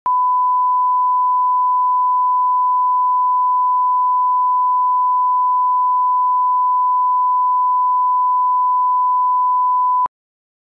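Steady 1 kHz line-up reference tone, the test tone played with colour bars at the head of a broadcast master tape. It holds one unchanging pitch and cuts off suddenly near the end.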